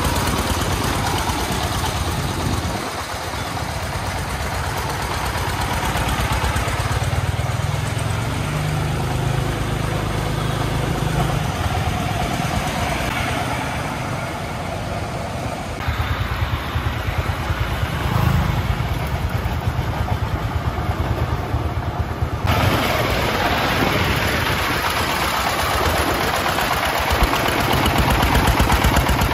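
The 24 hp single-cylinder diesel engine of a three-wheeled công nông farm truck chugging with a rapid steady beat as the truck drives along loaded with sand. The sound changes abruptly twice, about halfway and two-thirds of the way through.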